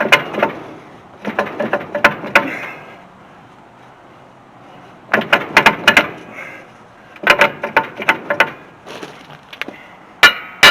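Metal-on-metal strikes on a truck's front brake drum and hub as it is worked loose, in five bursts of several quick knocks. The last strikes ring. The drum is still held by the brake shoes and is not coming off.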